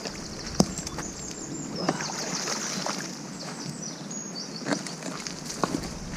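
Scattered sharp knocks and clanks from a wheelchair being hauled out of a canal on a magnet fishing rope, four or five at irregular intervals over a steady outdoor noise.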